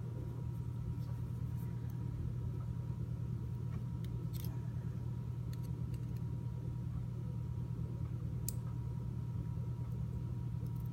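Steady low electrical or mechanical hum with a faint constant whine above it, and a few faint light clicks.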